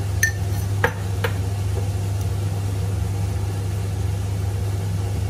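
Steady low hum, with a ringing metal clink and two sharp clicks of a metal utensil in the first second and a half.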